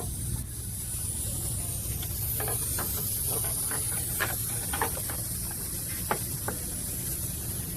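Engine running steadily with a low hum and a strong high hiss, with a scattered handful of light, irregular clicks in the middle.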